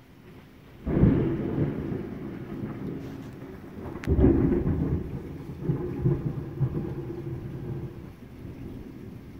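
Thunder: a clap about a second in that rolls on as a low rumble, then a sharper crack about four seconds in followed by more rolling rumble that fades toward the end.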